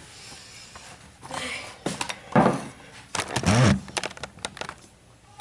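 A spoon and bowl being handled: irregular scrapes, clicks and knocks as a bowl of chopped white chocolate is stirred, with the loudest knocks and scrapes in the second half.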